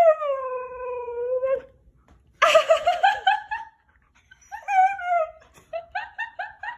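A dog howling in drawn-out calls that fall in pitch, one of them wavering, then breaking into a quick run of short yips near the end.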